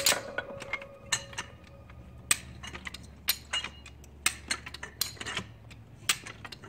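Hi-Lift farm jack being worked by its handle: sharp metallic clinks and clacks, irregularly spaced at about one or two a second, as the climbing pins snap in and out of the holes in the steel standard bar. The jack has been freshly cleaned and reassembled.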